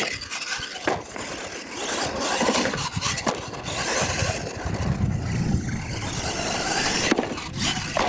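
Radio-controlled monster truck driving and jumping on a dirt track: its drivetrain whirring and tyres scrabbling over loose dirt. A knock comes about a second in as it lands from a jump, and a few more knocks follow as it bounces along.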